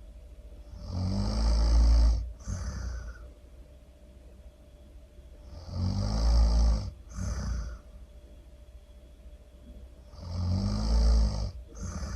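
Really loud snoring: three long snores about four and a half seconds apart, each followed by a shorter, softer breath.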